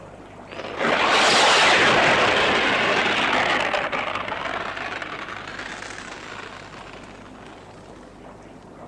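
A loud rushing hiss that sets in suddenly about a second in and fades away slowly over the next several seconds.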